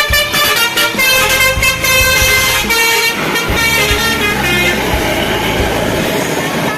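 A bus's multi-tone 'basuri' telolet horn playing a tune of quick stepped notes. It stops about five seconds in, leaving traffic noise.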